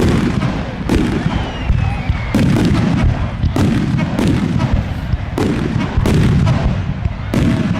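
Demolition derby cars' unmuffled engines running hard under a heavy rumble, broken by a string of sudden loud bangs about once a second as the cars collide.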